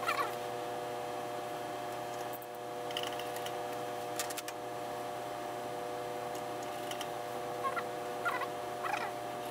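Industrial sewing machine with a steady motor hum, a few sharp clicks and several short falling chirps as mink fur is stitched.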